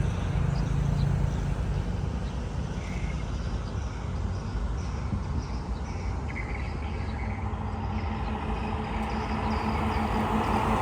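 Outdoor ambience: a steady low rumble of traffic or an engine with small birds chirping faintly, and a motor hum that grows louder near the end.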